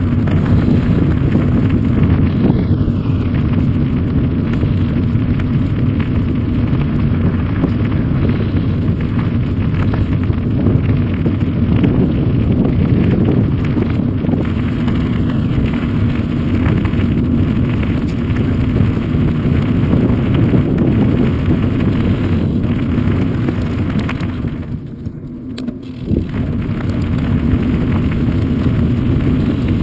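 Wind buffeting the microphone of a bike-mounted camera, mixed with the rumble of bicycle tyres rolling over a gravel path. The noise is steady and low, easing briefly about 25 seconds in before picking up again.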